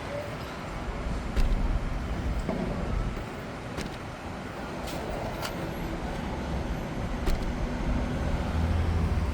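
Steady street traffic rumble, with a few short, sharp clicks scattered through it.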